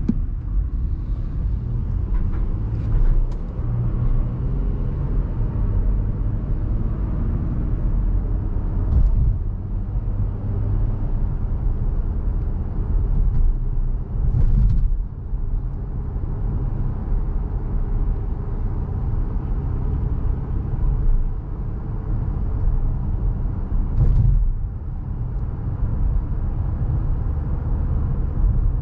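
In-cabin drive noise of a 2020 Honda Pilot with its 3.5 L V6: a steady low rumble of engine and tyres on the road. A few short thumps are mixed in.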